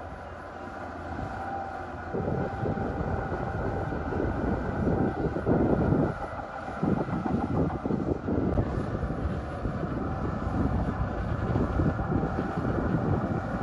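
Diesel engine of heavy earthmoving machinery running hard, with a brief dip about six and a half seconds in.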